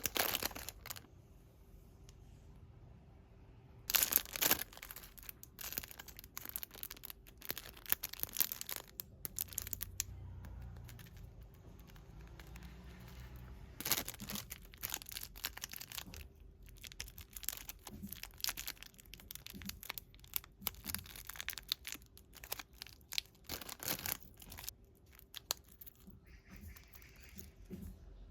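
Packaging being handled and opened by hand: irregular bursts of crinkling and tearing, some of them loud, with quieter rustling between.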